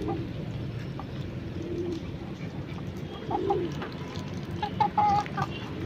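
Backyard poultry making soft, low cooing calls every second or so, with a few short, higher clucks about five seconds in.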